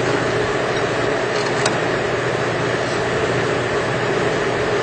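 Steady drone of running machinery, even and unchanging, with one small click about a second and a half in.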